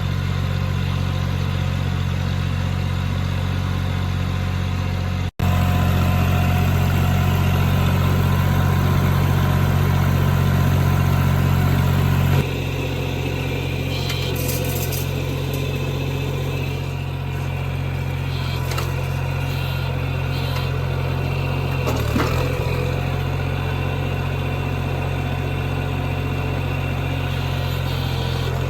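Old John Deere farm tractor engine running at a steady speed, a low even drone. It breaks off for an instant about five seconds in and changes tone abruptly about twelve seconds in.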